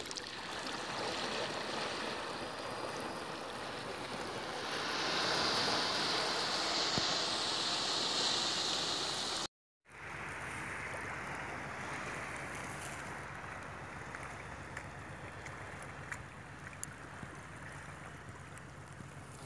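Sea water washing and lapping against shoreline rocks, a steady rush of small waves. The sound drops out for a moment about halfway through, then returns quieter with a faint low hum underneath.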